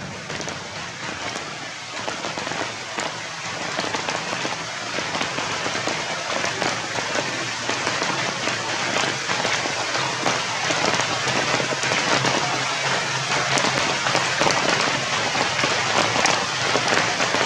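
Rain falling on leaves and ground, a dense patter of drops that grows steadily louder.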